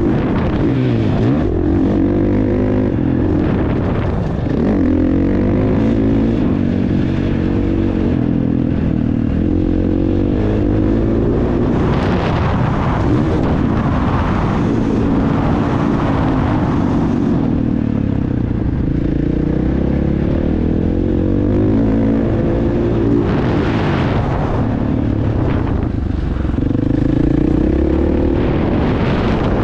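Motocross bike engine running hard, its pitch rising and falling over and over as the throttle is opened and closed and the rider shifts gears, with a few louder hissy surges along the way.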